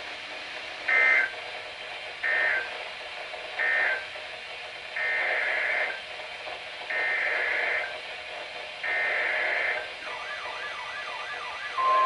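NOAA Weather Radio EAS SAME digital data bursts, a raspy two-tone screech over radio hiss. Three short end-of-message bursts close the first flood warning, then three longer header bursts begin the second alert. About ten seconds in, a repeating warbling alert tone starts, and a steady tone comes in right at the end.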